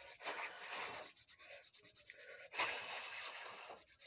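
Palms rubbed briskly together to warm cold hands: a dry, scratchy skin-on-skin rubbing in two spells, one in the first second and a longer one starting past halfway.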